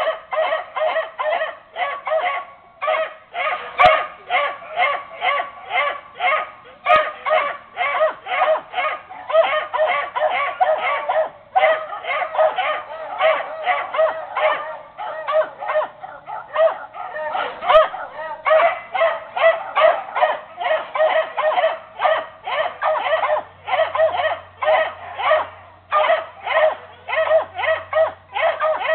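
Several beagles barking continuously in a quick, even run of about three barks a second.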